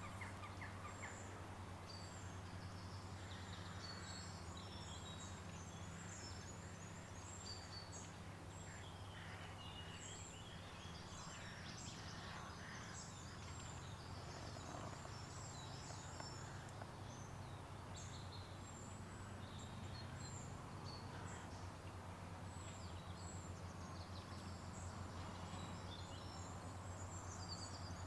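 Small birds chirping and singing in short, high phrases throughout, over a faint, steady low hum.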